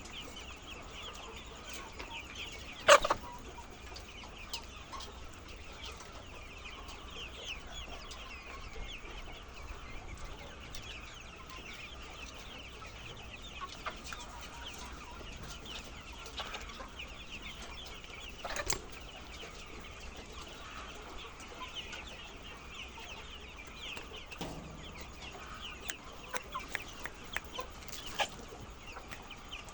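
A flock of laying hens clucking and chattering continuously, many birds at once. A sharp knock about three seconds in is the loudest sound, and a few fainter knocks come later.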